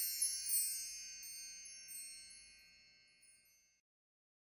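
High, glittering chime tones ringing out together, fading steadily until they die away about three and a half seconds in.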